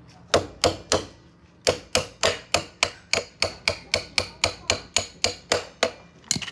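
Hammer blows on a workpiece: three strikes, a short pause, then a steady run of about sixteen strikes at roughly three or four a second.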